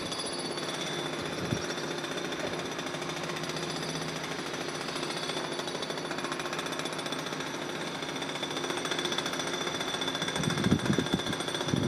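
Electric multiple unit approaching slowly over junction track: a steady, rapid rattling drone with several high, steady whines over it. It grows louder towards the end, with low rumbling thuds coming in near the end.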